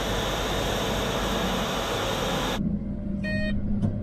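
Claas Xerion tractor pulling a Horsch Focus seed drill, heard from outside as a loud, steady hiss-like rush. About two-thirds in, the sound changes abruptly to inside the tractor cab: a low steady engine hum with a short beep and a click.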